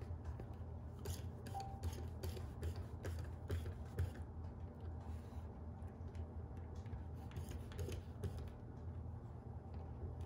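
Screwdriver working the screws of a plastic dog-door frame, with hands on the frame and flap: irregular light clicks and ticks, over a steady low hum.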